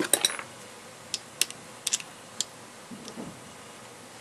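Irregular sharp clicks of a pointed metal tool tapping and picking at the plastic face of a toy Spy Gear watch, most of them in the first two and a half seconds.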